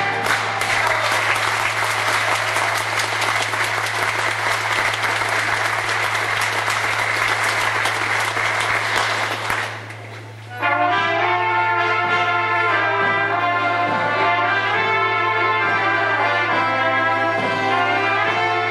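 Audience applauding, dying away about ten seconds in. About a second later, accordions and a drum start the next folk tune with a steady beat.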